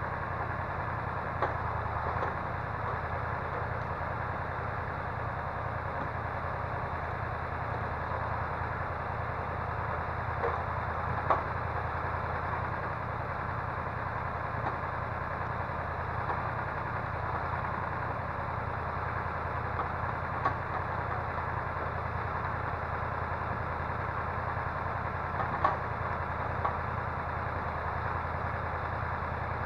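Diesel engine of a forestry crane machine running steadily, with a few short sharp knocks now and then.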